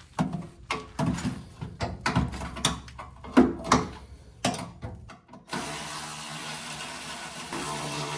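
Hand tools working on bolts: irregular ratchet clicks and metallic knocks. About five seconds in they stop abruptly and a steady hum takes over.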